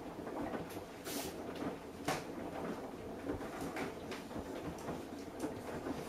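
Samsung Eco Bubble front-loading washing machine tumbling a load of laundry on its Cotton 90°C wash: a steady churning swish with irregular knocks and clicks as the load turns and falls in the drum.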